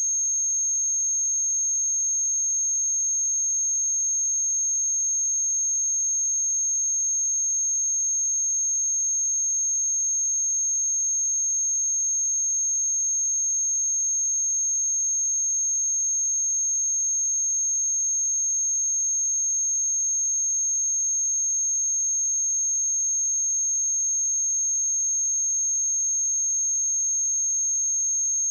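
A pure 6442 Hz sine-wave test tone, one steady high-pitched note held at constant loudness without a break.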